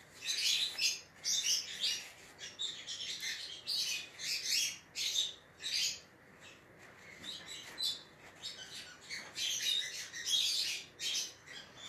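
A cloth rag rubbing back and forth over a painted wooden board, a long run of short scratchy swishes, one or two a second, easing off for a moment midway. The rag is wiping off a Vaseline resist so the paint comes away in patches for a distressed finish.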